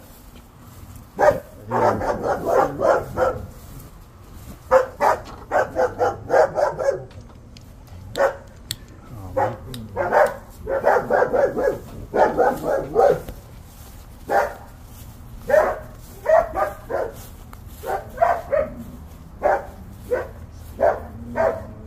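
A dog barking repeatedly, with single barks and quick runs of several barks about every second or two.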